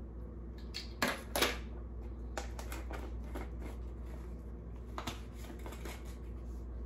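Light clicks and taps of a plastic measuring spoon and a spice jar as dried Italian seasoning is scooped and shaken into a bowl of pork panko crumbs. The two sharpest clicks come about a second in, with a few fainter taps after.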